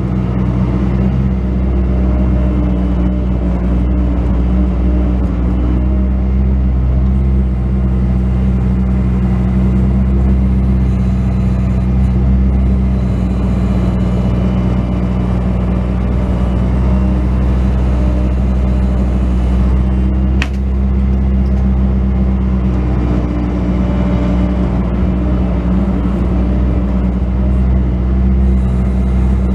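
Bobcat S185 skid steer loader's diesel engine running steadily, with a single sharp click about two-thirds of the way through.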